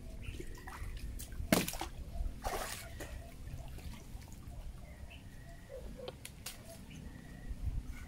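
River water sloshing and splashing around a person wading chest-deep, with two louder splashes in the first three seconds.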